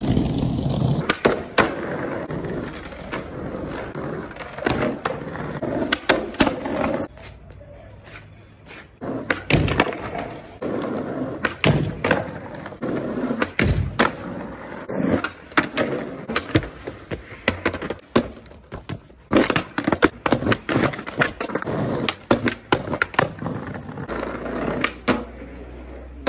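Skateboard on Spitfire wheels and Independent trucks rolling over rough pavement and concrete, with many sharp clacks of tail pops, landings and the board hitting ledges and the ground. There is a quieter stretch about a third of the way in.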